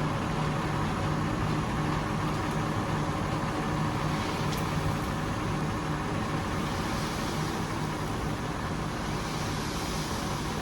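A steady low motor hum over a constant noisy wash, holding even throughout.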